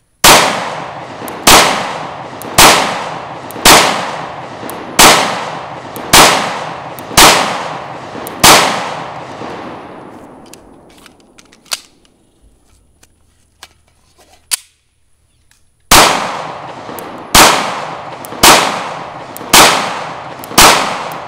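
FN 509 Tactical 9mm pistol fired in slow, aimed single shots about a second apart: eight shots, a pause of several seconds with a few faint clicks, then five more. Each shot is followed by a long, fading echo.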